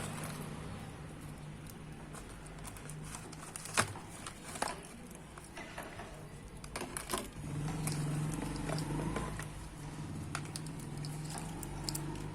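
Scattered sharp clicks and crinkling from a motorcycle alarm kit's packaging and parts being handled, over a steady low hum.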